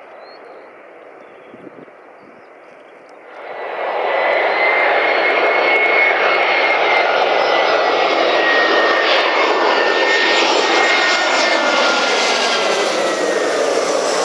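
Airbus A320-211's CFM56 jet engines on landing approach, loud as the airliner passes close overhead, with whining tones that slowly fall in pitch. The sound comes in abruptly about three seconds in, after faint distant noise.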